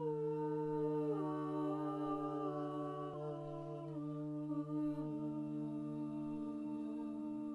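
Improvised humming by several layered voices: a low note held steady while the higher notes move in slow steps from one long held pitch to the next, fading out near the end.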